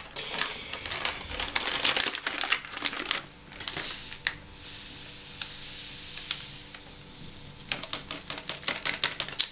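Foil drink-powder pouch crinkling and tearing open, then a steady hiss for about four seconds as the orange electrolyte powder pours into a glass, followed by more crinkling of the pouch.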